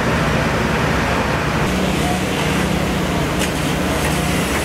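Muddy floodwater gushing from a hose onto a street, over a truck engine running steadily; a low engine hum comes in under the rushing water about two seconds in.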